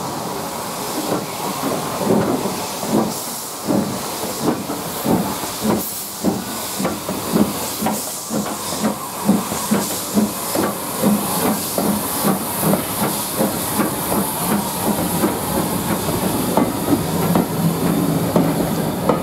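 Steam locomotive 53809, an S&DJR 7F 2-8-0, passing slowly with loud steam hiss from its cylinders. Rhythmic beats come about twice a second as the engine and then its coaches roll by.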